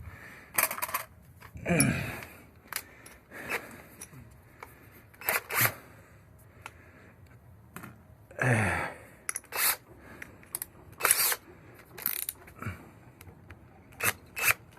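Handling noise from working the doorbell wire and mount by hand: irregular clicks, snaps and rustles. About two seconds in and again just past the middle come two short sounds that fall in pitch.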